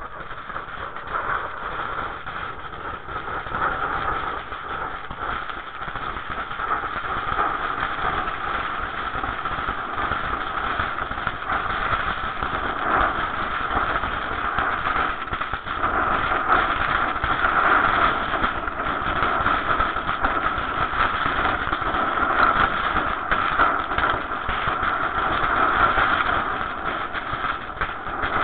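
Ground fountain firework spraying sparks: a steady rushing roar with dense crackling, growing louder over the first several seconds.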